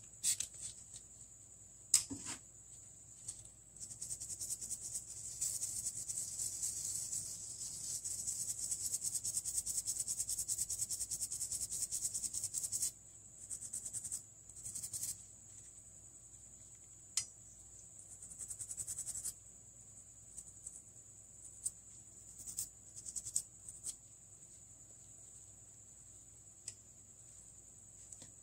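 Scratchy scrubbing on a Samsung J210G phone motherboard being cleaned with isopropyl alcohol. It comes as a long spell of rapid strokes starting about four seconds in, then shorter spells and a few sharp clicks, over a steady high-pitched whine.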